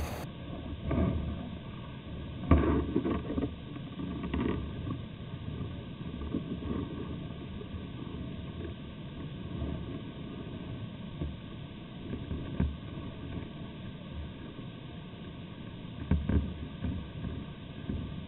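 Wind buffeting the camera's microphone in low, irregular gusts, strongest about two and a half seconds in and again about sixteen seconds in.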